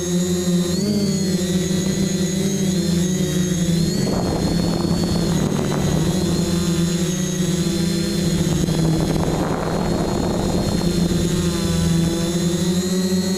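FPV quadcopter's electric motors and propellers whining steadily, heard from the drone's own onboard camera, the pitch shifting a little with throttle. Two stretches of rushing noise break in, about four seconds in and again near nine seconds.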